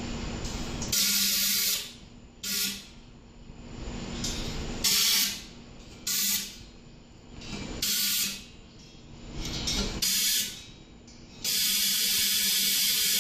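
Compressed-air blow gun blasting air into the exhaust ports of a Pacesetter tube header, in about seven short hissing bursts; the last one is held for about two seconds.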